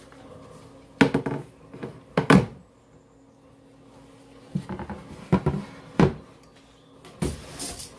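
A series of knocks and clunks as a large round serving platter is set down on a countertop and shifted into place, over a faint steady hum.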